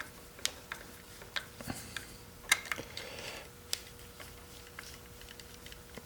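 Scattered light clicks and taps, irregularly spaced, as a wire is bent and fitted under a terminal screw of a timer switch and the screwdriver works the screw.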